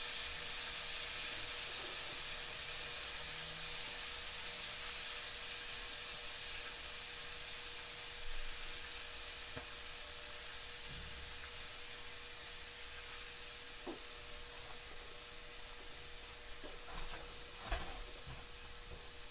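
Fresh orange juice sizzling as it is squeezed into a hot cast-iron skillet to deglaze it, with the burner off. The steady hiss slowly fades.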